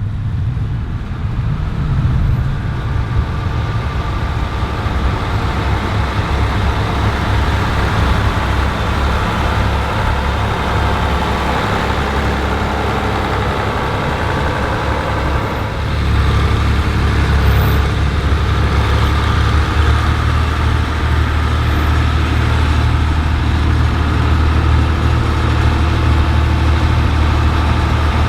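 Tractor engine running steadily, getting louder about sixteen seconds in.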